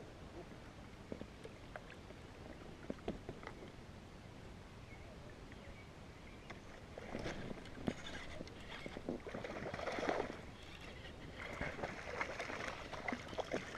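A hooked bass splashing and thrashing at the water's surface as it is fought toward the kayak, in irregular surges that begin about halfway through. Before that there are only faint scattered clicks.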